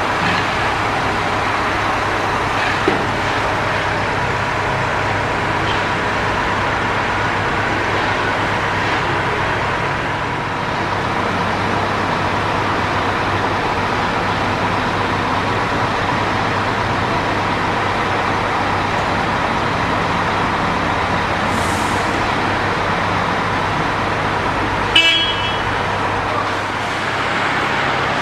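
Heavy diesel engines of a mobile crane and heavy-haulage truck running steadily while the crane holds a load. A single sharp clank with a short metallic ring comes near the end.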